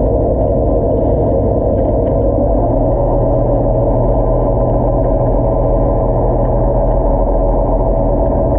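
Electric motor of a diver propulsion scooter running steadily under load, heard underwater as a constant hum of several tones with a low rumble. Its note shifts slightly about two and a half seconds in, with a stronger low hum after the change.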